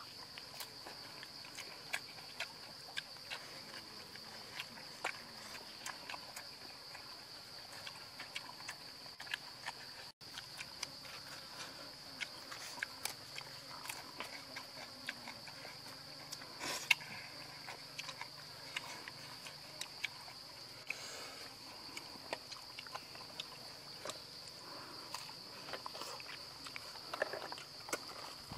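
Steady, high-pitched drone of forest insects, crickets or cicadas, with scattered small clicks and taps over it.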